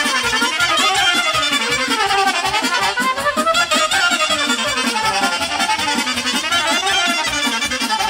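Live folk band playing an instrumental passage between sung verses: a fast, ornamented melody over a steady beat.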